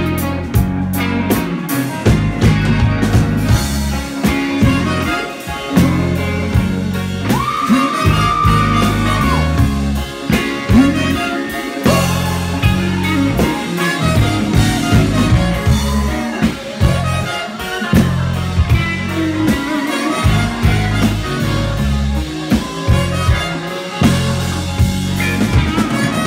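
Live soul band playing loud, with a heavy low end: a male singer's vocals over drum kit, electric guitar and saxophone. About eight seconds in, one note is held for a couple of seconds.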